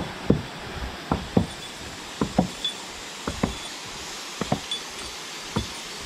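Footsteps knocking on the boards of a wooden footbridge, often two close together, about once a second, over the steady rush of a mountain stream.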